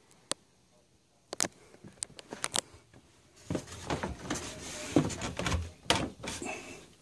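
Handling noise from a handheld camera moving through a small wood-panelled room: a few sharp clicks, then rustling with dull thumps from about three and a half seconds in.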